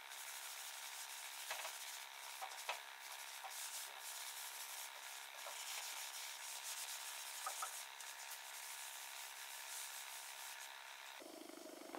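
A gloved hand rubbing wax oil into bare pine boards, soft rubbing strokes with a few faint ticks.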